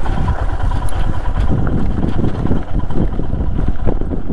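Motorcycle engine running while riding, with wind buffeting the microphone in a continuous low rumble.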